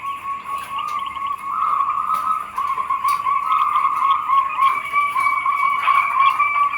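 Zebra doves (perkutut) cooing, several birds overlapping in a continuous stream of short, repeated notes.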